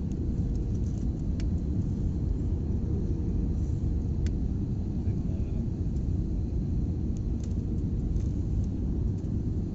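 Steady low rumble inside an airliner cabin during the descent to landing: engine and airflow noise, with a faint steady hum and a few light clicks.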